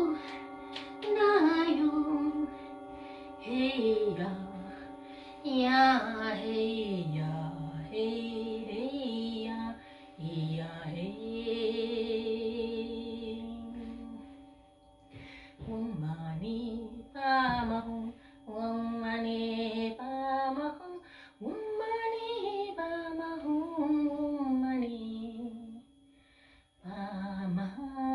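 A female voice sings a slow, wordless devotional melody in phrases with short pauses, gliding between held notes. Under it, several steady ringing tones, typical of singing bowls, hold unchanged throughout.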